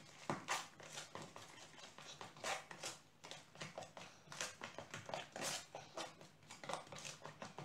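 Pancake batter being beaten by hand in a plastic bowl: irregular taps and clicks of the mixing utensil against the bowl, a few each second.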